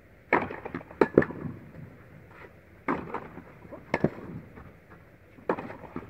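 A tennis serve and rally: sharp racket-on-ball hits and ball bounces about every second or so, each ringing briefly in a large indoor tennis hall.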